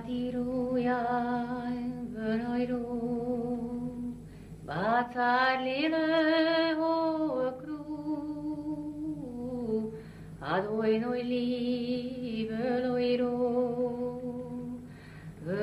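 A solo voice singing a slow, wordless-sounding melody in long held notes with vibrato, each phrase starting with an upward slide, over a steady low drone.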